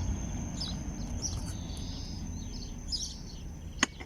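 Small birds chirping faintly over a low background rumble, with a single sharp click near the end.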